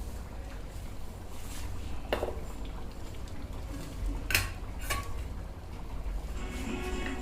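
Metal kitchen utensils knocking against a cooking pan: one clink about two seconds in, then two more close together a couple of seconds later, over a low steady hum.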